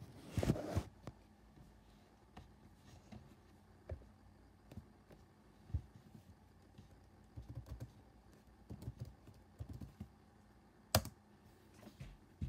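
Soft, scattered keystrokes and clicks on a computer keyboard, coming in small irregular clusters, with one sharper click near the end. A brief rustle of handling right at the start.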